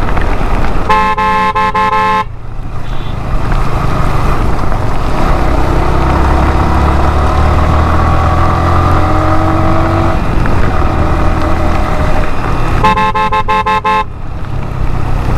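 A vehicle horn sounds twice, one blast of about a second near the start and another near the end, over the running engine and road rumble of a moving vehicle. Between the honks the engine pitch rises slowly as it accelerates.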